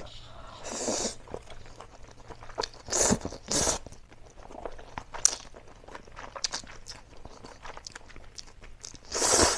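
A person slurping and chewing instant noodles close to the microphone: loud slurps about three seconds in and again near the end, with smaller wet chewing and mouth sounds between.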